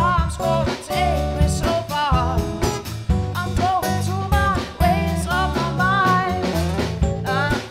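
Acoustic band playing a song live: strummed acoustic guitar with a voice singing the melody over it.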